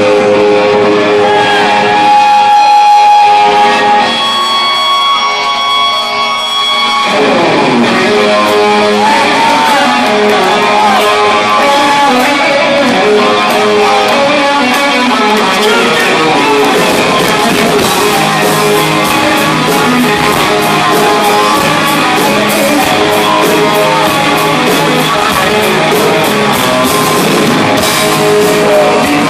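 A live rock band playing loud. A distorted electric guitar (a Les Paul-style solid-body) holds ringing notes for the first seven seconds, then the full band with drums comes in, driving a heavy guitar riff.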